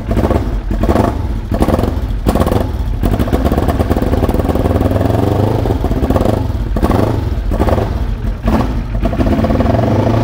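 Paton racing motorcycle's Kawasaki 650 parallel-twin engine running just after start-up and being revved with a quick series of throttle blips, a longer rise in revs in the middle, then more blips.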